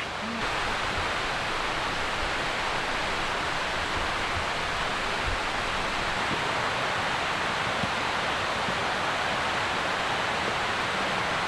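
Steady, even rushing of water, with no separate drops or knocks standing out.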